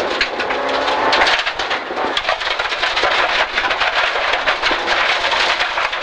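Subaru Impreza rally car at speed on gravel, heard from inside the cabin: the engine running under a dense rattle of gravel and stones pinging against the underside and wheel arches.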